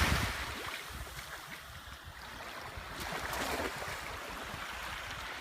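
Surf washing against jetty rocks, with one wash swelling louder about three seconds in.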